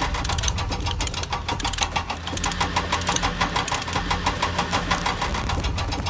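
Engine running steadily with a rapid, even clatter and a low steady hum, the sound of working machinery such as an excavator's engine.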